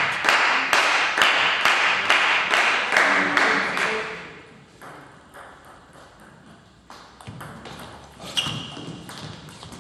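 Scattered hand clapping for the first few seconds, dying away. Then a table tennis rally: the ball clicking off the bats and the table in a quick, regular back-and-forth, with one louder hit near the end.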